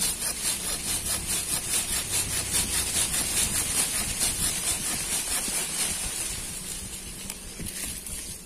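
A folding hand saw with a 180 mm blade cutting through a leafy branch in quick, even back-and-forth strokes that fade out near the end.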